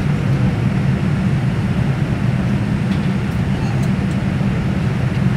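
Airliner cabin noise while taxiing: the turbofan jet engines running at taxi power give a steady low hum with a noise haze above it, heard from inside the cabin.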